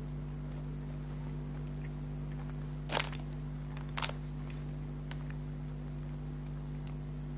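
Two crisp crunches of a bite into a chocolate biscuit, about a second apart, over a steady low hum.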